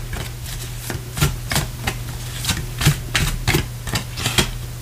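Tarot cards being drawn from the deck and laid down on a desk mat: a run of light, irregular taps and flicks, about two or three a second.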